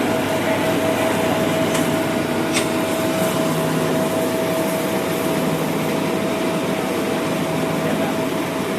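Combined rice hulling and milling machine running steadily: an even, loud machine noise with a constant whine, and two faint ticks between two and three seconds in.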